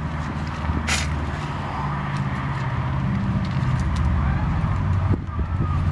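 A motor vehicle engine running with a steady low hum, and one brief scratchy noise about a second in.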